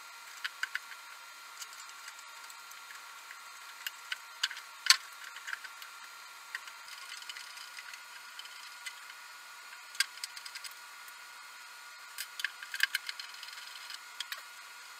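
Scattered light clicks and taps of small parts and tools being handled while an electric unicycle is moved over to a new shell. The sharpest come about five and ten seconds in, with a quick run of clicks near the end, over a steady faint hiss.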